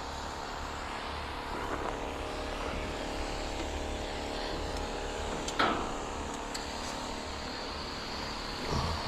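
Steady mechanical hum of a running motor, with a sharp knock about five and a half seconds in and a thin high steady tone that starts a second later.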